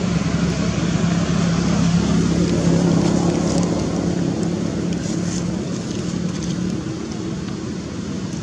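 A steady low engine hum, swelling to its loudest about three seconds in and easing off toward the end.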